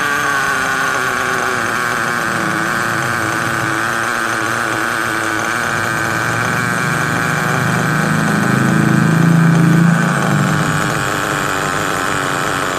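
Small two-stroke nitro glow engine of an RC car running steadily on its stand while its carburetor is adjusted with a screwdriver. It grows louder and deeper for a few seconds near the end, then settles back.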